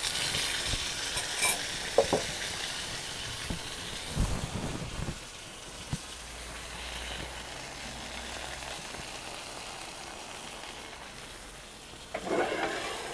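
A thick steak sizzling in a cast iron skillet as it is turned with metal tongs, with a few sharp tong clicks. About four seconds in there is a dull knock as the pan is lifted, and after that the sizzle goes on more quietly.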